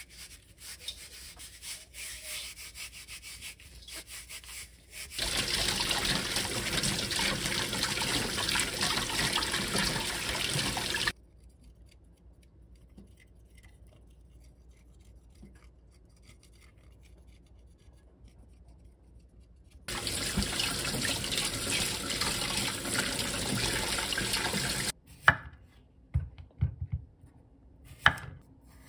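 A cucumber being rubbed with coarse salt in a stainless steel sink. Tap water then runs for about six seconds and stops, and after a pause runs again for about five seconds. Near the end a knife chops a few times on a wooden cutting board.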